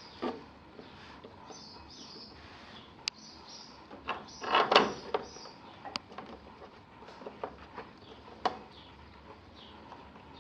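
Elliptical machine parts being handled during assembly: scattered sharp clicks and knocks, with a louder clatter about four and a half seconds in.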